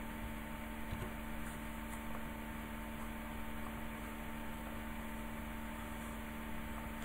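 Room tone: a steady faint electrical hum made of a few fixed tones over a constant hiss, with no speech.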